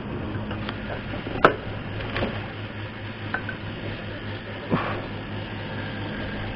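Metal-on-metal clicks and clinks as a petrol pump nozzle is handled at a motorcycle's fuel tank and the tank's filler cap is closed: four sharp knocks, the loudest about one and a half seconds in, over a steady low hum.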